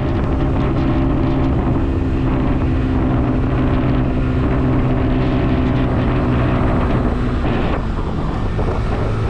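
A motor vehicle's engine running steadily, a low even hum with wind rushing on the microphone; the engine note shifts a little near the end.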